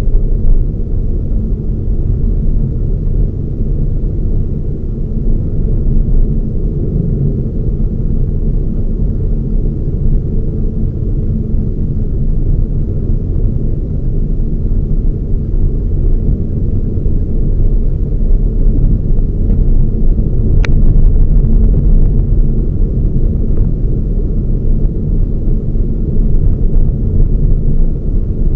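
Toyota Raize GR being driven: a steady, loud low rumble of engine and road noise, with one short sharp click about two-thirds of the way through.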